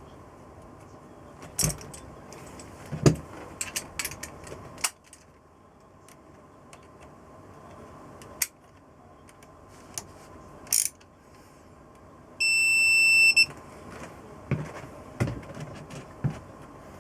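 Workshop handling sounds of hand tools and small metal engine parts: scattered clicks, clinks and knocks, several in quick succession. Near the end a single electronic beep lasting about a second.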